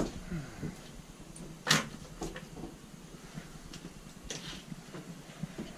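A handful of scattered light knocks and clatters from gear being handled, the loudest a little under two seconds in.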